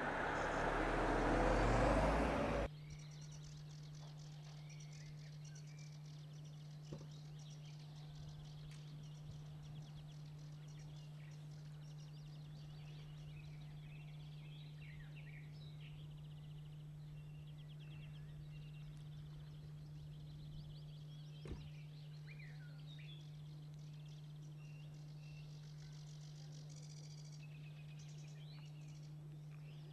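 A car approaches on an open road, its engine and tyre noise growing louder, then cuts off sharply about three seconds in. After that, scattered faint birdsong chirps sound over a steady low hum.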